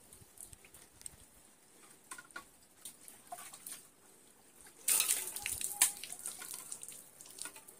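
Water splashing and dripping onto a wet concrete slab, with a louder burst of splashing about five seconds in.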